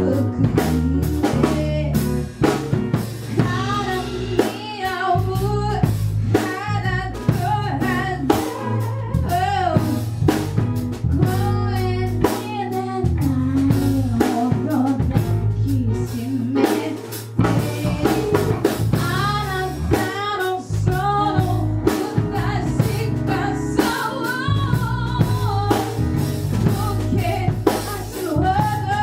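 A band playing a song: a singer's voice over a drum kit, bass and guitar, with a steady drum beat.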